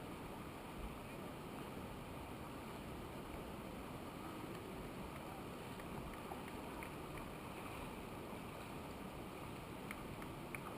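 Steady, even rushing noise, with a few faint short clicks near the end.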